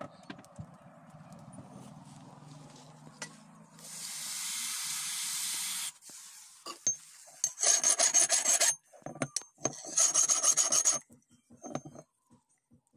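A steady hiss lasts about two seconds, then two loud spells of harsh metal rasping follow, each a little over a second long, as a file is worked over the steel axe head.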